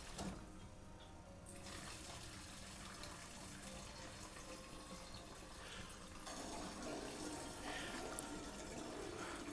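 Gasoline pouring through a jerry can's spout into another gas can: a faint, even flow with no gurgles, growing a little louder after about six seconds.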